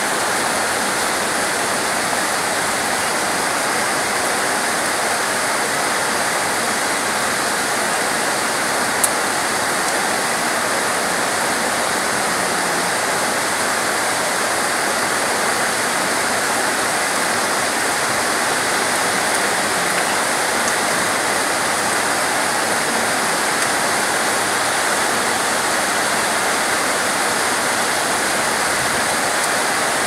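Steady heavy rain falling on palm fronds and tree foliage, an even unbroken hiss. A single brief click about nine seconds in.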